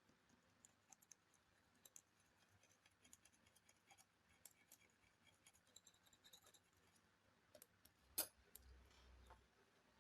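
Faint, scattered clicks and taps of small hard parts and tools being handled during a laptop teardown, with one sharper click about eight seconds in.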